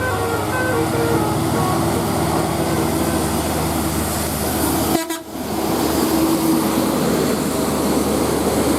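Bus telolet horn, the multi-tone air horn of an Indonesian bus, playing a quick run of short notes and then holding a lower note, over the steady noise of the passing bus. The sound breaks off briefly about five seconds in, then the held horn note comes back.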